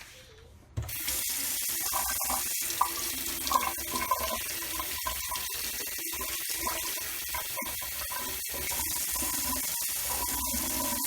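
Water tap running into a sink, turned on about a second in. The steady stream is broken by many brief interruptions.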